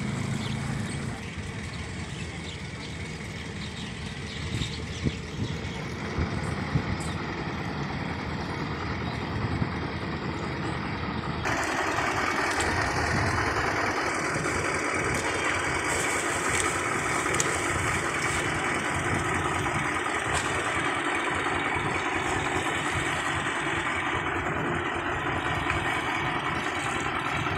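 Small fishing boat's engine idling alongside the pier, a steady running drone that steps up louder and brighter partway through.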